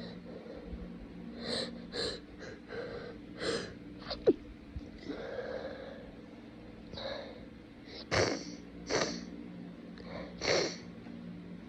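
A person with a blocked, runny nose sneezing and sniffling over and over in short, wet bursts. The loudest, a sharp sneeze, comes about four seconds in.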